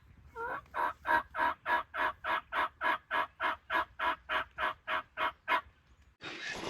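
Wild turkey yelping: a long, loud, even run of about eighteen yelps, some three a second, that stops a little before the end. A steady hiss sets in just after the yelps end.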